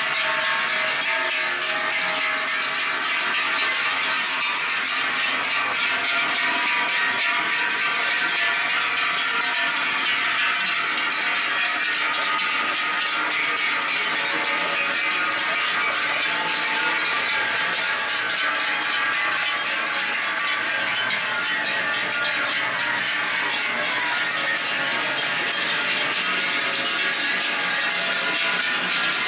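Many large Swiss cowbells (toupins) hanging from the necks of a passing herd of cows, clanging continuously and overlapping as the cows walk. The sound is a dense, steady ringing with no pauses.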